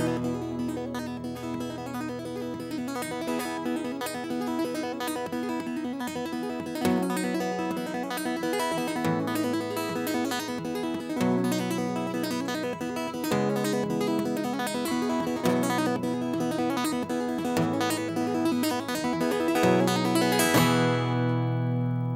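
Instrumental acoustic guitar, strummed and picked chords with the bass note changing about every two seconds.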